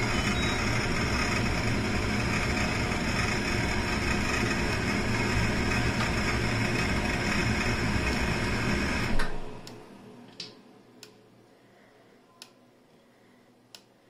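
A loud, steady mechanical whir with a low hum cuts off abruptly about nine seconds in. A few soft clicks follow, about one a second or so, as the AEG L9FER962A washing machine's programme selector is stepped through its wash programmes.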